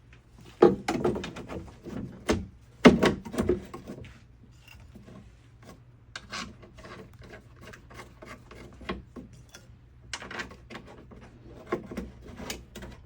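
Door latch being worked back into a Jeep TJ Wrangler door: two louder clunks in the first three seconds, then lighter clicks and scraping of metal parts against the door shell.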